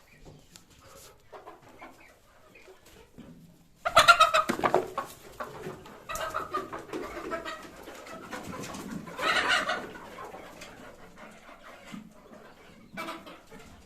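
Chickens clucking and squawking, with a sudden loud outburst of calls about four seconds in and another around nine and a half seconds.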